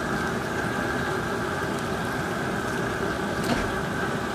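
Propane burner running steadily under a large outdoor boil pot, with the seasoned water at a boil, a continuous even rushing noise. A brief faint click about three and a half seconds in.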